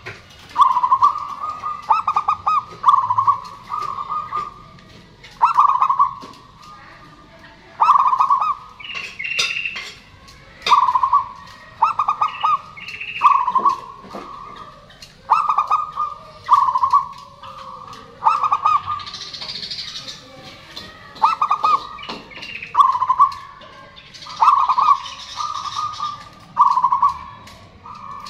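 Zebra dove cooing: short phrases of rapid, stuttering notes, one after another every second or two. A few higher chirps from another bird come in now and then.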